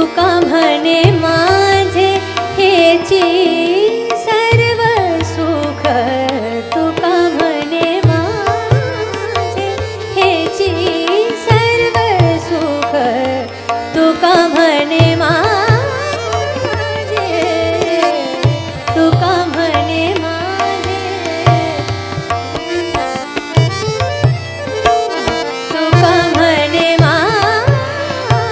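Indian classical devotional music: tabla keeps a steady rhythm beneath a fast, heavily ornamented melody line full of quick gliding runs.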